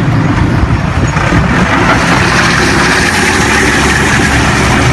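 Forklift engines running, a steady low rumble under a dense rush of noise.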